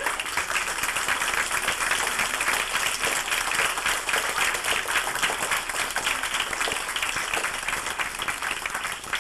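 Audience applauding: many people clapping at once in a dense, steady patter, loud throughout.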